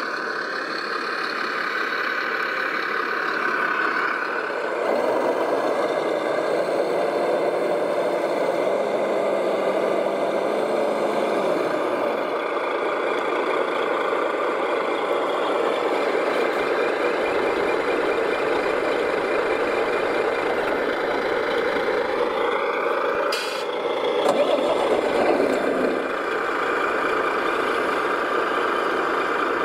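Radio-controlled scale Mercedes Zetros 6x6 dump truck making a steady truck-engine sound as its tipper body raises, with a brief sharp hiss about three-quarters of the way through.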